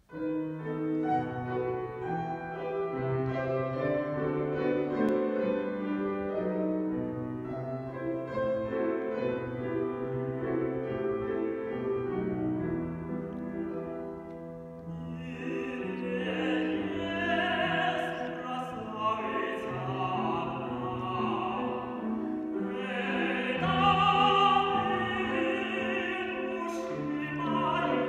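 A grand piano plays a classical introduction alone for about fifteen seconds. Then a man's voice enters, singing in operatic style with vibrato over the piano accompaniment.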